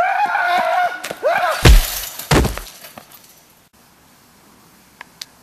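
A person screaming, then two loud crashes about half a second apart.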